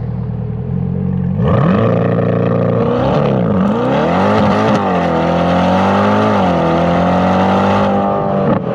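C8 Corvette V8 through a stainless-steel cat-back exhaust with an X-pipe, under hard acceleration and heard close to the tailpipes. The revs climb steeply about a second and a half in, the pitch dips and rises again twice, then it holds steady at high revs before backing off near the end.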